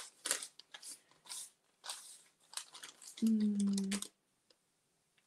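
Decoupage paper being torn and crinkled by hand: a run of short crackling rips and rustles. About three seconds in comes a brief steady hum, the loudest sound here.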